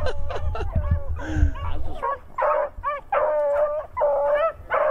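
A pack of beagles baying on a rabbit's track, several voices overlapping. Short, choppy cries give way about two seconds in to long, drawn-out bawls.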